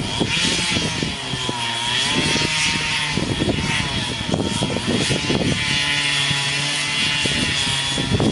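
A chainsaw's engine running under load while cutting, its pitch dipping and rising as the revs change.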